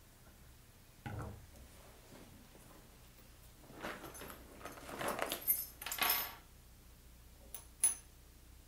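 A bunch of metal keys jangling as they are handled, then set down on a tabletop with a sharp clink near the end. A soft thump about a second in.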